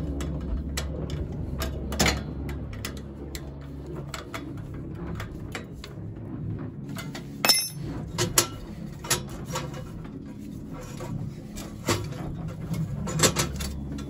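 Scattered small metallic clicks and taps as metal tubing and fittings are handled and tightened at a boiler's gas valve, with one sharper clink and a brief ring about seven and a half seconds in. A steady low hum runs underneath.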